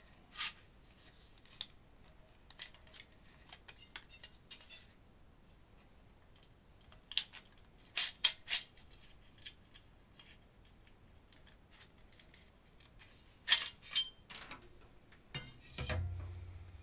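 Plastic board carrier and LED strip sliding and scraping out of an aluminium light-fitting extrusion, with scattered clicks and rubs and a few louder scrapes about 8 and 14 seconds in. A brief low rumble near the end.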